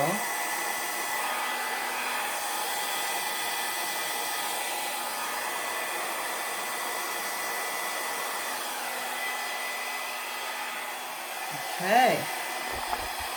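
Handheld hair dryer running steadily, blowing poured acrylic paint across a canvas, with a faint steady high whine over the rush of air.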